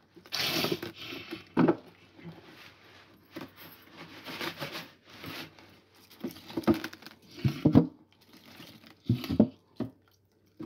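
Plastic milk jug crinkling as it is squeezed, with half-frozen broth pouring out of it into a pot of soup in irregular bursts.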